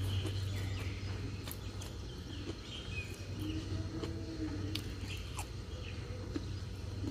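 Eating sounds: a person slurping and chewing fried noodles, with scattered small clicks, over a steady low hum. Faint bird chirps in the background.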